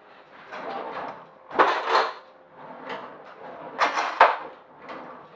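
A kitchen drawer opened and rummaged through, with rattling and knocking of utensils; there are two louder bursts of clatter, and the second ends in a sharp click.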